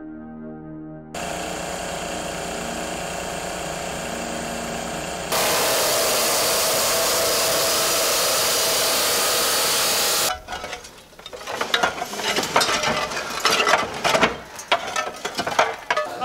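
A power tool runs steadily, then about five seconds in a loud steady grinding takes over for about five seconds as an abrasive cut-off disc cuts steel. It stops abruptly and gives way to irregular knocks and clatter of building work.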